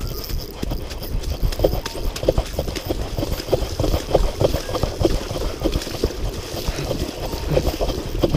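Running footsteps on a wet, muddy creek bank, about two to three steps a second, with a jacket sleeve brushing and rustling close by.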